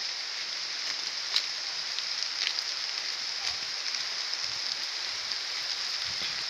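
A steady high-pitched hiss, with a few faint clicks about one and a half and two and a half seconds in.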